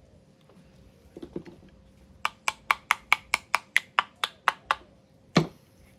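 Quick run of about a dozen light, sharp taps, roughly four or five a second, then one harder knock: a part of a Shimano Tiagra 130 reel's ratchet-lever assembly being tapped to seat it.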